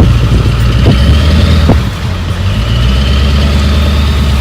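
Heavy tow vehicle's engine running steadily at low revs as it pulls a car whose seized rear brakes keep the rear wheels from turning, with a few sharp knocks in the first two seconds. The engine eases off slightly about two seconds in.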